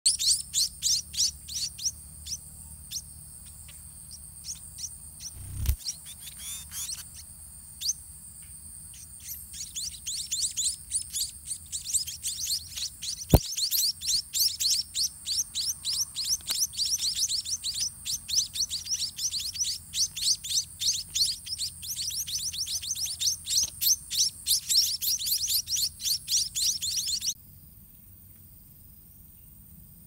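White-rumped munia nestlings begging while being fed by a parent: rapid, high-pitched cheeping. The calls are sparse at first, grow dense and fast from about ten seconds in, and stop abruptly near the end. There is a dull thump around six seconds in and a sharp click around thirteen seconds.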